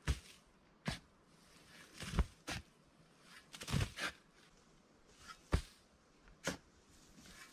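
Small spade digging and scraping dry, sandy soil: a series of separate scrapes and knocks about a second apart, with one longer scrape a little past the middle.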